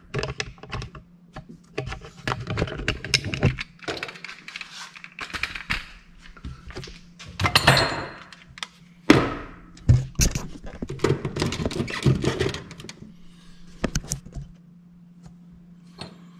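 Irregular metal clinks, knocks and scrapes as a ball joint separator tool is handled and fitted up under a truck's front suspension, with a faint steady low hum behind.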